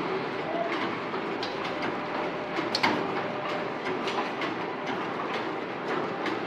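Cannon vertical form-fill-seal pouch packing machine with an auger filler running: a steady mechanical clatter with frequent clicks from its sealing and cutting action, one sharper click a little under halfway.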